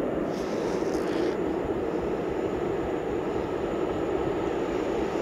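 Freight train drawing near: a Škoda class 181 electric locomotive hauling covered wagons, a steady rumble of the locomotive and its wheels on the rails.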